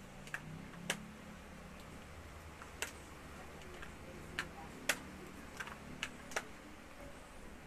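Hair straightening flat iron clicking as its plates snap shut on sections of hair: about seven sharp clicks at uneven intervals, several bunched together in the second half, over a low steady hum.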